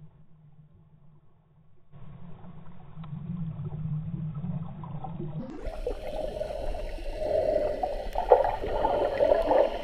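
Muffled underwater water noise from a swimmer kicking and stroking, picked up by a GoPro inside its waterproof housing. It is dull and low at first, gets louder about two seconds in, and turns clearer and fuller about halfway through.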